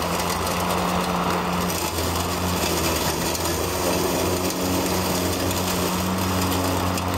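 Mowrator S1 remote-controlled lawn mower running steadily, its motor tone over the rushing noise of the blade cutting through long grass as it drives across the paddock.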